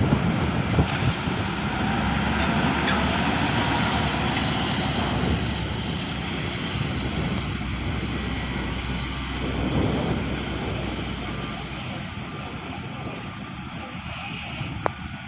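Heavy earthmoving machinery's diesel engine running steadily, with a low rumble that drops away about three-quarters of the way through and the overall noise easing off.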